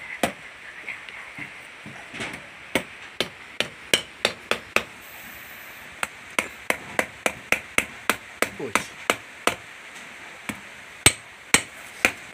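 Heavy kitchen knife chopping boiled duck neck on a round wooden chopping block: runs of quick, sharp knocks separated by brief pauses.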